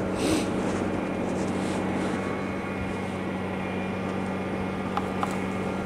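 Steady mechanical hum of a motor or engine running, with a constant low drone and no change in pitch, plus a brief hiss shortly after the start.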